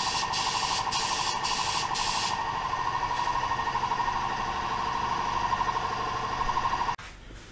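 Gravity-feed paint spray gun hissing as it sprays a coat of clear, with a steady whistle of air through the gun. The spray breaks briefly four times in the first two seconds and then eases off, and the air cuts off suddenly about seven seconds in.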